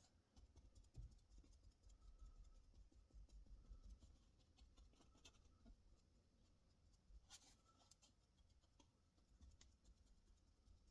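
Near silence with faint, scattered soft taps and scratches of a sponge dabbing colourant onto a leather steering wheel.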